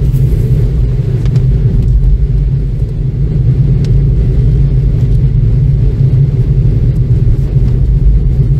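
Steady low rumble of a car driving along at road speed, heard from inside the cabin: engine and road noise.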